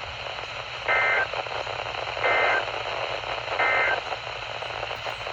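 NOAA Weather Radio broadcast sending the EAS end-of-message signal: three short, identical bursts of two-tone digital data, about a second apart, over steady radio hiss. It marks the close of the required weekly test.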